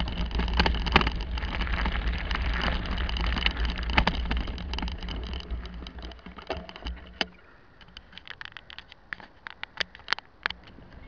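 Bicycle riding over a rough dirt and cobblestone track, with wind noise on the bike-mounted camera's microphone and the bike and mount rattling and knocking over bumps. About seven seconds in, the wind noise drops away and only scattered knocks remain.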